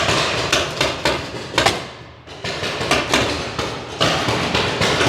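Paintball markers firing in rapid, irregular sharp shots, with a brief lull about two seconds in.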